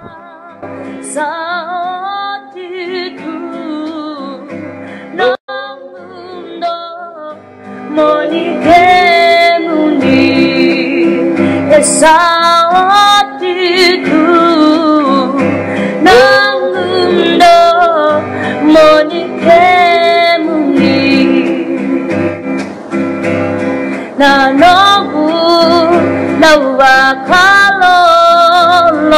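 Background song: a woman singing over guitar, soft at first and getting louder about eight seconds in.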